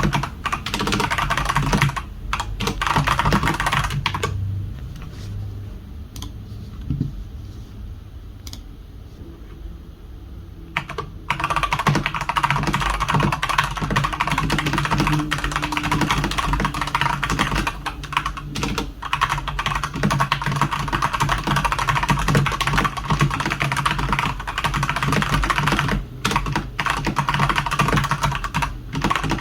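Fast continuous typing on a Redragon Sindri K671 mechanical keyboard with Outemu Red linear switches, a dense run of key clacks. The typing stops for several seconds soon after the start, then picks up again at full speed, with a couple of brief breaks near the end.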